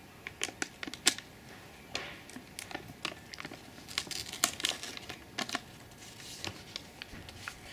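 Pringles crisps crinkling and clicking inside their cardboard tube as a hand rummages in it to pull one out, in a string of irregular small crackles.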